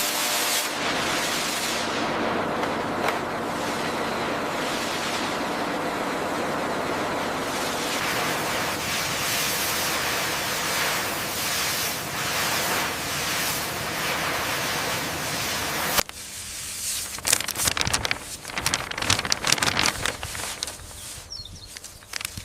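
Steady hiss of a high-pressure cleaning jet blasting the hull, which cuts off suddenly about two-thirds of the way through. Irregular sharp crackles and clicks follow.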